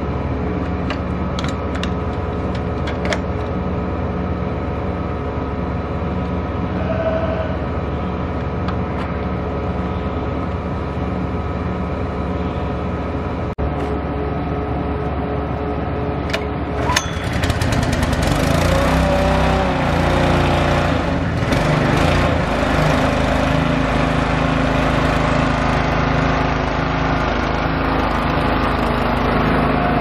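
Small engine on a tank trailer's transfer pump running steadily, with a tractor engine idling underneath. About 17 seconds in there is a click, and the engine sound becomes louder and rougher.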